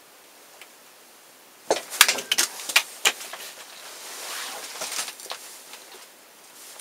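Handling noise in a workshop: a quick run of sharp clicks and knocks, then rustling of a jacket and a few light taps as a homemade knife-head arrow is picked up and held out.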